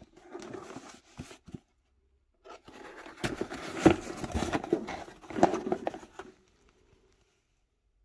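Cardboard mailer box being handled and opened: rustling and scraping of the cardboard with several sharp knocks in the middle, dying away near the end.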